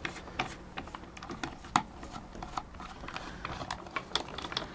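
Irregular small clicks and taps of a small screwdriver and fingers working at the plastic housing of a vintage toy robot arm being taken apart.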